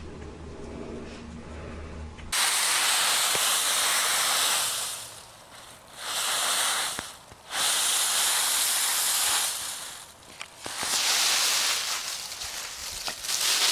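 Dry fallen leaves rustling and crunching as a small puppy pushes through a leaf pile. The rustling comes in loud bursts of one to three seconds with short quieter gaps, starting about two seconds in after a faint low hum.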